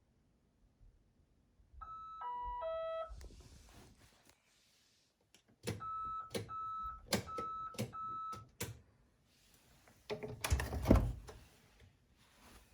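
Appliance electronic signal: a three-note falling chime, then a run of four or five short beeps on one pitch with clicks between them, then a single louder clunk near the end. This is typical of a washing machine's control panel beeping at the end of a cycle.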